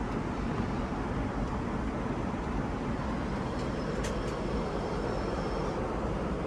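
Steady cabin noise of an Airbus A380 in flight. About four seconds in come a few light clicks, with a faint high whine lasting about two seconds.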